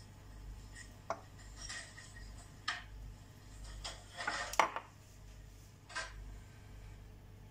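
Light clinks and knocks of kitchenware as a silicone pastry brush and a ceramic bowl of beaten egg are handled: about five separate knocks, the loudest a little past halfway.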